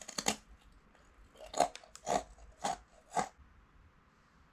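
A crisp onigiri senbei rice cracker being bitten and chewed: a sharp crunch at the start, then four crunching chews about half a second apart.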